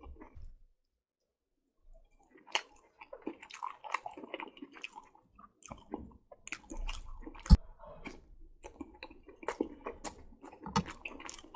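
Close-miked wet chewing of saucy spaghetti noodles and meatballs: irregular smacking and squishy mouth clicks. It starts after about two seconds of near silence, with one sharp, loud click about midway.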